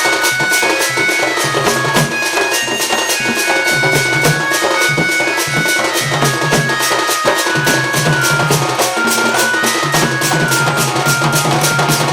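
Sambalpuri danda nacha folk music: a shrill wind instrument plays a melody of held notes over a steady low drone, with fast, steady drumming throughout.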